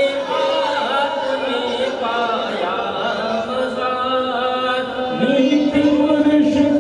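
Unaccompanied male voices chanting a devotional hymn through a microphone and PA. About five seconds in, a stronger, lower voice comes in and the chant grows louder.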